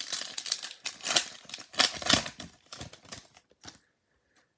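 Trading cards and pack wrapper being handled: irregular rustling with crisp clicks and snaps, stopping about four seconds in.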